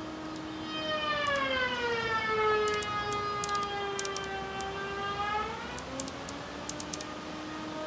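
A woodworking machine in a carpentry shop whining at a distance: about a second in its pitch drops and stays low for several seconds as it cuts under load, with scattered sharp ticks, then rises back toward its free-running pitch near the end.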